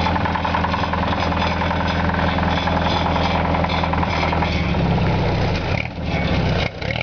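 1943 Ford GPW jeep's four-cylinder flathead engine idling with a little knock, which the owners guess may be a wrist pin. About four and a half seconds in the engine note changes, and it dips briefly near the end.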